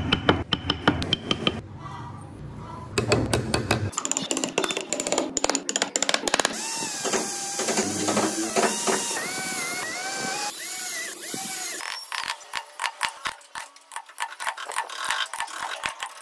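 Steel carving chisel cutting into wood in quick repeated strokes, then an electric drill running while it bores holes in a carved wooden grille, its pitch rising and falling. Quick chisel strokes return near the end.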